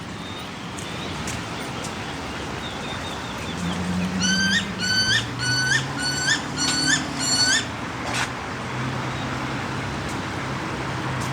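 A bird calling a run of seven short, clear notes, about two a second, each hooking upward at its end, starting about four seconds in, over a steady low hum.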